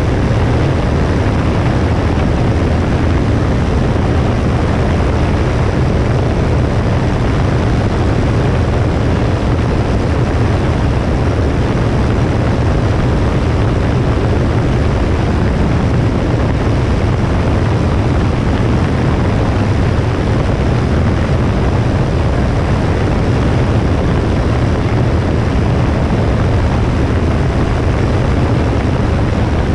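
Cessna 172S's four-cylinder Lycoming engine and propeller running steadily with airflow noise, as picked up from the wing, a constant deep drone with a rushing hiss over it.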